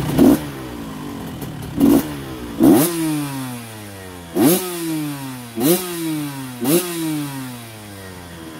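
1990 Honda CR125's single-cylinder two-stroke engine being blipped on the throttle about six times. Each rev climbs sharply and then winds back down toward idle.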